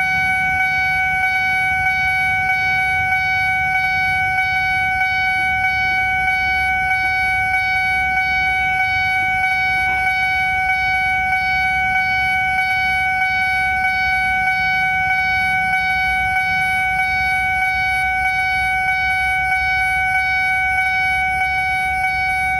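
Railway level-crossing alarm sounding one steady, unbroken electronic tone over a low rumble. This is not the crossing's usual alarm: it has been swapped with the alarm of crossing PJL 134.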